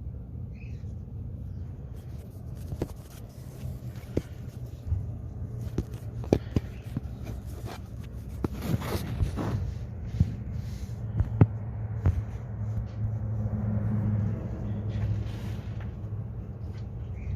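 BMW E46's engine idling steadily, with scattered clicks and knocks over it.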